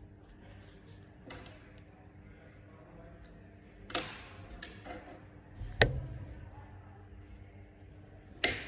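Several sharp knocks over a faint steady hum, the loudest one about six seconds in with a deep thud.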